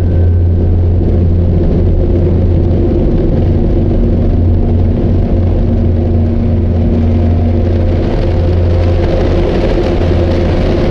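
A steady, loud low rumble with a deep hum under it and a hiss that grows brighter over the last few seconds.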